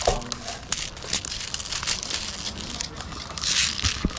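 Airsoft BBs being pushed from a clear speed loader into a rifle magazine: a quick run of small clicks and rattles, with glove and gear rustling and a louder rustle near the end.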